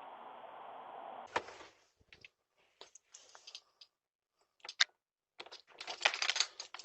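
A steady hiss that cuts off with a sharp click about a second in, followed by scattered short clicks and knocks and a brief cluster of noisy bursts near the end.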